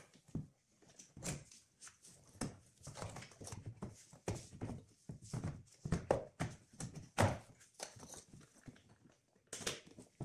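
Hands refitting parts in a car engine bay: irregular knocks, clicks and rustling as plastic and rubber parts are handled, with the engine off.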